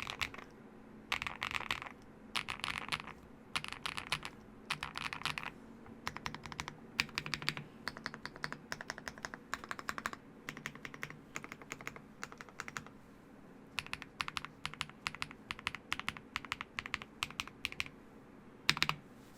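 Typing on a Meletrix Zoom98 mechanical keyboard with lubed MMD Aqua King switches, a PC plate, full foams and Drop DCX doubleshot ABS keycaps. Short bursts of rapid keystrokes at first, then longer continuous runs, with one louder clack near the end.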